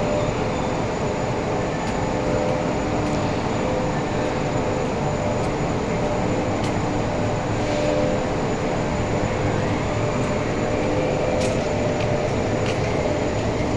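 Steady mechanical running noise of workshop machinery, with a faint hum that comes and goes and a few light clicks.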